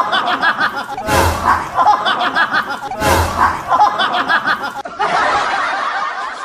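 Laughter repeating in a loop, the same burst starting over about every two seconds, then a different stretch of laughter from about five seconds in.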